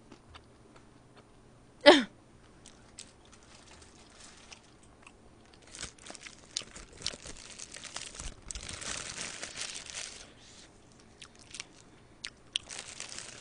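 A paper burger wrapper rustles and crinkles as it is handled and peeled open, most densely from about six to ten seconds in and again near the end. About two seconds in there is a single brief, loud sound that drops sharply in pitch.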